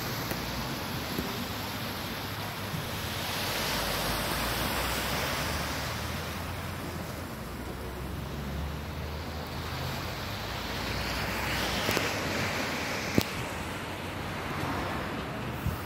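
Small sea waves washing up the shore and over a concrete slipway at high tide, swelling and fading every few seconds, with wind rumbling on the microphone. A sharp click about thirteen seconds in.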